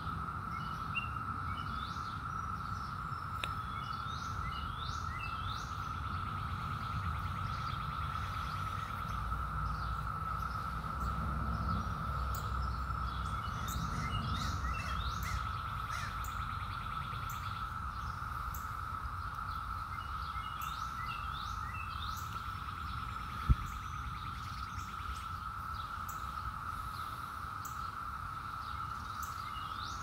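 Cicada chorus: one unbroken, steady drone, with birds chirping in short bursts every several seconds. A single sharp click about two-thirds of the way through.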